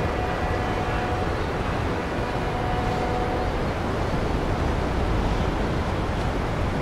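Steady rushing outdoor noise of a harbour, with faint steady hums that fade out about three and a half seconds in.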